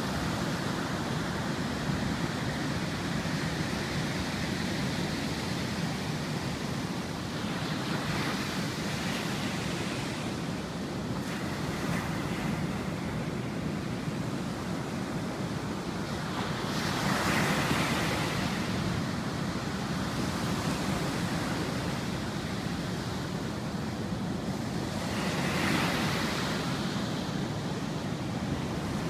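Ocean surf: a steady wash of broken white water, with a louder wave crashing three times, about every eight or nine seconds.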